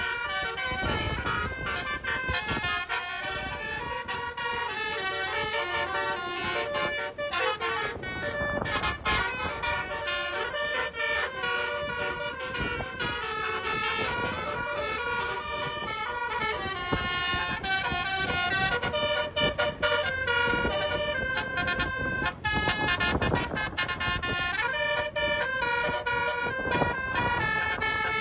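Indonesian telolet bus horns of the Basuri multi-tone kind, playing a melody of short notes that change pitch over and over, with vehicle noise underneath.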